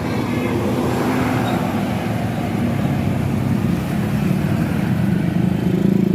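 Heavy diesel tour-bus engine running with road noise as the bus passes, the low engine sound growing louder near the end.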